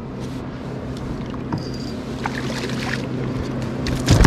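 Small knocks and rubbing of line and gear in a kayak as a catfish is hand-lined up to the boat, over a steady low hum. A burst of louder knocks comes near the end.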